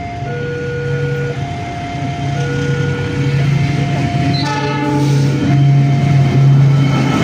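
Railway level-crossing warning alarm sounding two alternating tones, switching about once a second, while a diesel-hauled container freight train approaches with a low rumble that grows louder. A short horn blast comes about halfway through.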